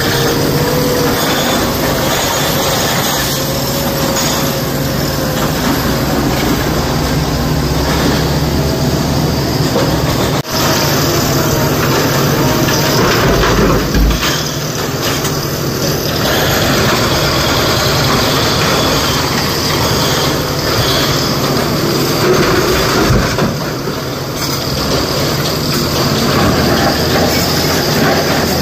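Diesel engines of a tipper truck and a SANY SY225 excavator running together under load, with rock clattering as the excavator loads the truck; a heavier crash of rock comes about halfway through.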